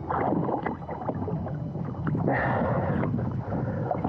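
Sea water splashing and sloshing close to the microphone as a snorkeler treads water at the surface, with a busy patter of small splashes throughout.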